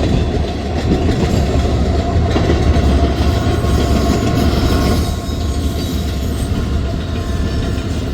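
Freight cars of a manifest train rolling past, a loud, steady rumble of steel wheels on the rails with dense clicking, easing off slightly about five seconds in.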